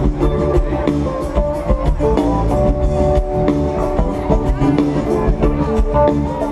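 Live jam band playing through a large outdoor PA, heard from within the crowd: electric guitar over a drum kit keeping a steady beat.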